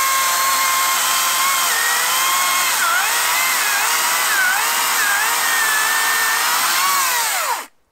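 Makita DUC306 cordless 2 x 18 V chainsaw running flat out through a 20 cm log in normal mode, a steady electric-motor whine. The pitch dips briefly a few times as the chain loads up in the wood. Near the end the whine winds down and stops as the cut finishes.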